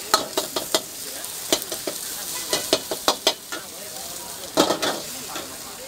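Stir-fry sizzling steadily in a hot wok, with a metal ladle knocking and scraping against the wok in irregular strokes as bean sprouts, bok choy and egg are tossed.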